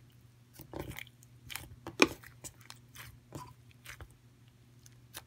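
Hands squeezing and pressing pink slime putty, making an irregular run of sharp clicks and pops, the loudest about two seconds in and a last one near the end. A faint steady low hum lies underneath.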